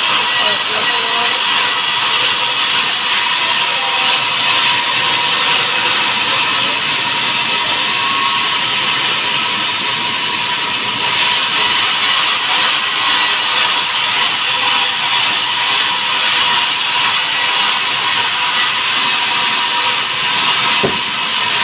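Vertical band sawmill running and ripping timber: a loud, steady hiss of the blade cutting through the wood, with a steady whine underneath and a single knock near the end.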